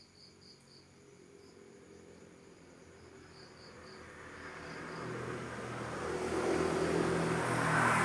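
Crickets chirping in short repeated pulses while a motor vehicle approaches, its engine and road noise growing steadily louder through the second half and peaking near the end as it passes close.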